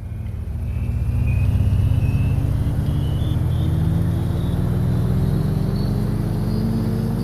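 Vehicle engine running and speeding up steadily, its low note and a thin high whine both rising slowly in pitch as it fades in.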